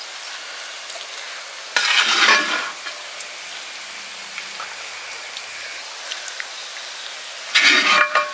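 A metal ladle scraping and scooping thick chicken masala out of a hot metal pot, twice: about two seconds in and again near the end, with a faint metallic ring. Between the scoops the masala left in the pot sizzles steadily over the fire.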